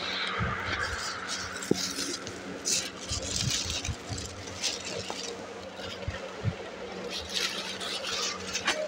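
Clear plastic poly bags crinkling and rustling in irregular bursts as packaged football jerseys are handled, with a few soft knocks, over a steady low hum.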